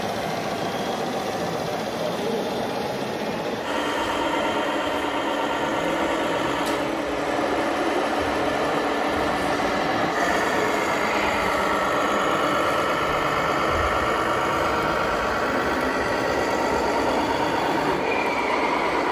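Steady engine-like running of radio-controlled model trucks and machines, with a few whining tones sliding in pitch, and abrupt changes in the sound about four and seven seconds in where the footage cuts.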